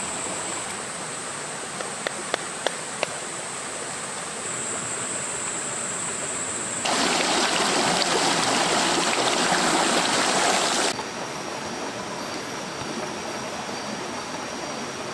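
Rocky stream flowing steadily, with a steady high-pitched hum above it and a few sharp clicks about two seconds in. For about four seconds in the middle the water comes in much louder and closer as a rush, then drops back to the steady flow.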